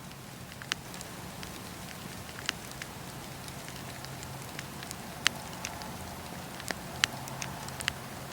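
Wood fire in a fireplace crackling: a steady low rumble with irregular sharp pops and snaps, the loudest a little past the middle.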